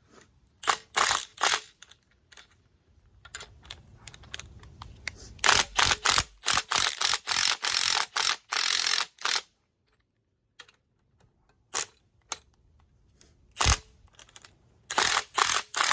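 Ratchet wrench clicking in runs as it turns the spring compressor's threaded rods, backing the compressor off a little at a time on the new front lowering spring; the longest stretch of ratcheting comes in the middle, with scattered clicks after it.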